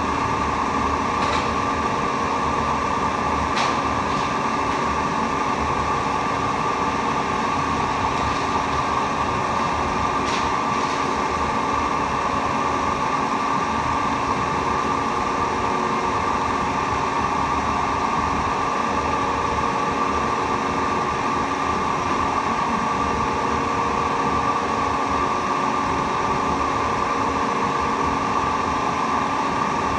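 Electric stirring machine running at a steady speed, its motor humming evenly while the liquid churns in a vortex, with a few faint ticks.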